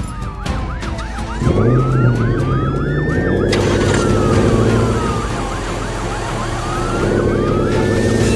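Emergency-vehicle sirens sounding together: one wails slowly down and back up while another yelps in quick rising-and-falling sweeps. A steady low engine-like hum comes in about a second and a half in.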